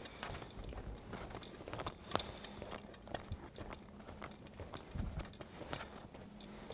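Footsteps of a person walking on raised-floor tiles: irregular knocks and scuffs over a faint steady hum.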